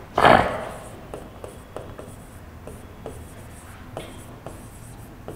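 Chalk writing on a blackboard: faint scratches and taps of the strokes, a few each second, after a short louder rush of noise right at the start.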